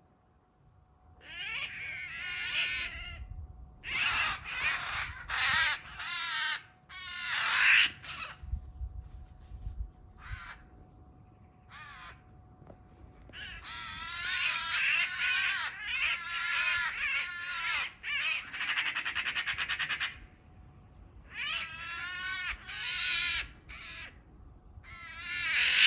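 Eurasian magpie giving repeated distress calls in bouts of one to several seconds, with a fast stuttering run about two-thirds of the way through. These are the calls of a magpie pinned on the ground under an attacking Eurasian sparrowhawk.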